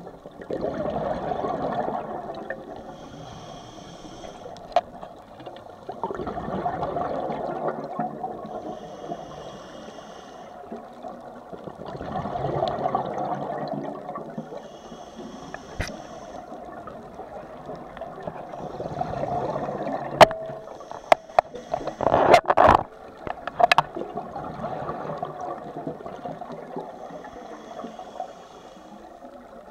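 Scuba diver's own breathing through a regulator, recorded underwater: about every six seconds a short hissing inhale is followed by a longer gurgling rush of exhaled bubbles. A cluster of sharp clicks and knocks comes about two-thirds of the way through.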